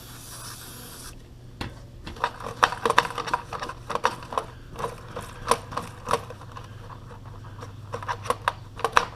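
Aerosol brake and parts cleaner hissing from the can, stopping about a second in. Then irregular scraping and clicking as the sliding door's grimy roller wheels are turned and wiped clean.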